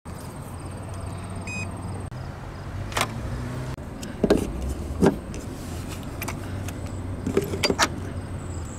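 A charging adapter and a ChargePoint charging handle being plugged into a Tesla Model S charge port: several sharp clicks and knocks, the loudest about four and five seconds in and a quick few more near the end, over a steady low hum.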